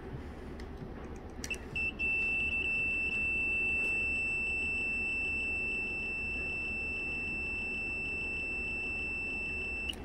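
Digitech QM1561 clamp meter's continuity beeper: a short beep about one and a half seconds in, then one steady high-pitched beep held for about eight seconds that cuts off near the end. It sounds because the probes rest across the brushless wash-pump motor's terminals, reading about 50 ohms.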